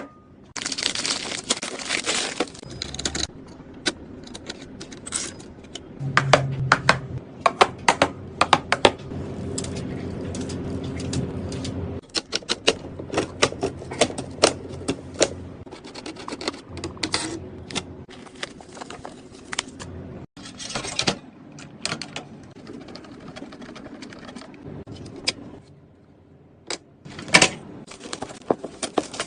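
Irregular clicking and clattering of PC hardware being handled and fitted together, sharp plastic and metal clicks over a low hum.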